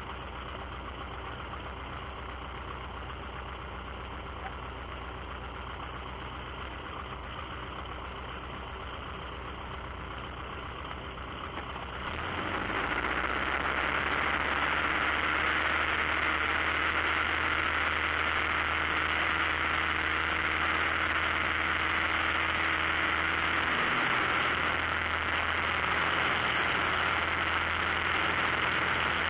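Light aircraft's piston engine and propeller heard from inside the cockpit, running at low power, then opened up to full throttle about twelve seconds in for the takeoff roll, much louder and steady from then on.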